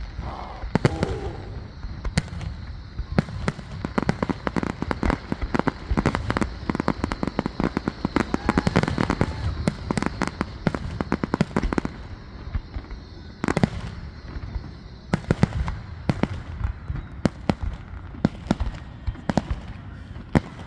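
Fireworks display: many sharp bangs and crackles going off in quick succession, at their thickest in the middle.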